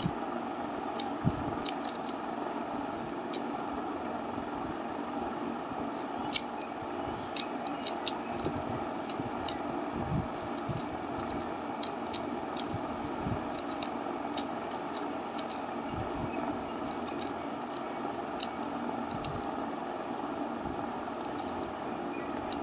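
A Rubik's cube being turned by hand, with irregular quick plastic clicks from the layers, over a steady background hum.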